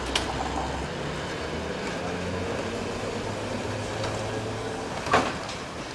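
Vintage electric tram moving off along the track with a low, steady motor hum that steps in pitch a few times. A single sharp clack comes about five seconds in.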